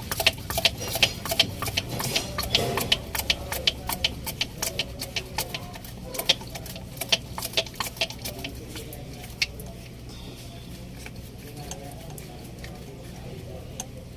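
Quick, irregular run of sharp metal clicks from hand tools working on an Isuzu 6WF1 fuel pump's solenoid valve, thinning out about nine to ten seconds in. A low steady hum sits underneath.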